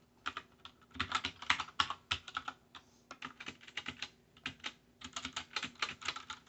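Computer keyboard keys being typed in quick irregular bursts of clicks with short pauses: a passphrase being entered to unlock an encrypted drive at boot.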